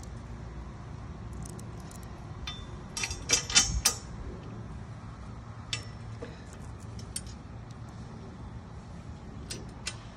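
Small steel bolt, washers and lock nut clinking against each other and the cart's metal bracket as they are fitted and started by hand, with a quick run of clinks a few seconds in and scattered single clicks after. A low steady hum sits underneath.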